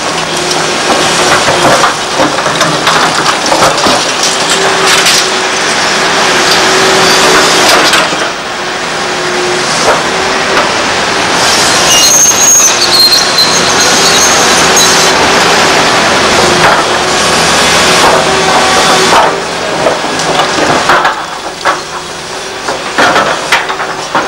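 Liebherr R964 hydraulic excavator's diesel engine running under load as its bucket digs into and scrapes through brick and concrete rubble, with crunching and clattering of debris. A high squeal sounds for a few seconds about halfway through.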